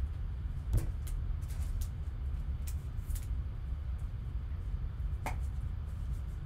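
Trading cards and clear plastic card holders being handled: a scattering of light clicks and rustles, several over the first few seconds and one more around five seconds in, over a steady low hum.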